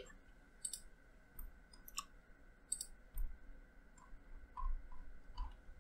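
Faint computer mouse clicks, short and irregularly spaced, about a dozen over several seconds.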